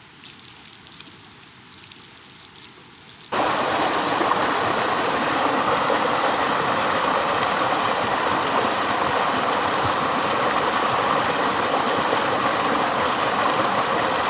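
Steady rushing of flowing water, like a stream or small waterfall, cutting in suddenly and loudly about three seconds in after faint background sound.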